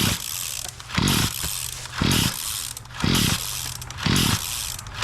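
Small two-stroke engine on a gas-powered earth auger, running and surging about once a second: a loud low pulse followed by a steadier hum and hiss.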